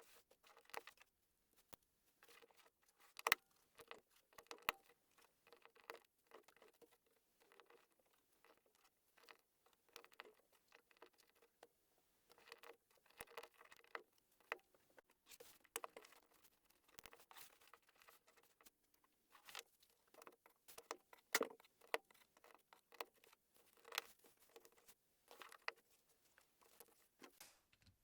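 LEGO plastic bricks clicking and rattling as pieces are handled and snapped together, a rapid irregular run of small clicks and taps with a few sharper ones.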